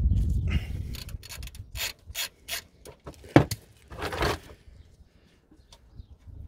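Socket ratchet clicking in short bursts as the engine oil drain plug on the sump is undone, with one sharper click about three and a half seconds in. A low rumble fills the first second.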